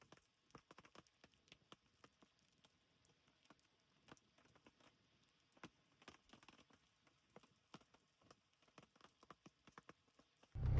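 Faint, scattered ticks and taps at irregular intervals, over near silence.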